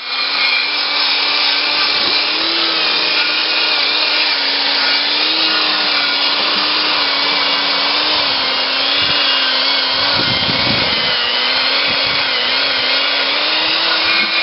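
Massey Harris small tractor's engine running steadily, a loud mechanical drone whose pitch wavers slightly, with a brief low rumble about ten seconds in.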